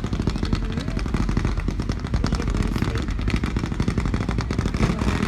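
Aerial fireworks crackling: a dense, unbroken run of rapid pops.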